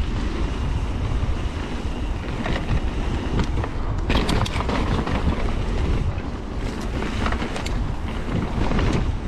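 Mountain bike riding down a dirt trail: wind buffeting the camera microphone over the rumble of tyres on dirt, with several sharp clacks and rattles as the bike jolts over bumps.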